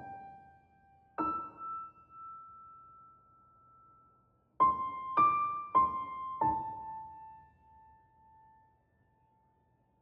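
Slow, sparse solo piano music: a single note held for about three seconds, then four notes in quick succession about halfway through, the last left ringing and fading away.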